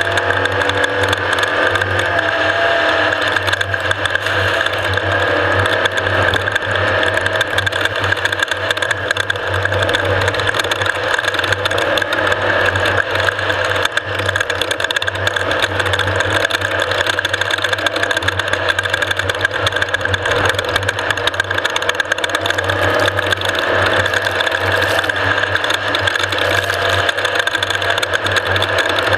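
Off-road race vehicle running steadily, its engine drone mixed with a constant dense mechanical rattle.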